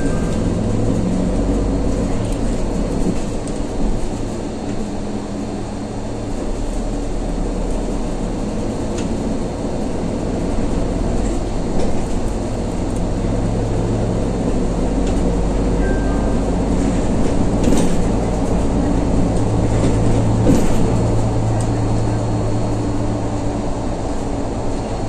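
Mercedes-Benz Conecto G articulated city bus heard from inside the passenger cabin on the move: a steady engine drone and road rumble. The engine note swells and eases several times, and a couple of brief knocks or rattles come in the second half.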